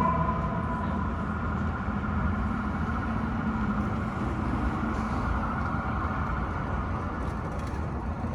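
Steady street traffic noise with a heavy vehicle's engine rumbling. A fire truck siren's tone winds down and fades out about a second in.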